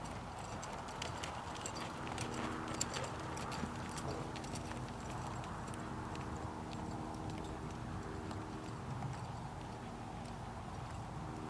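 A horse's hoofbeats, with scattered sharp clicks about two to four seconds in, over a steady low hum.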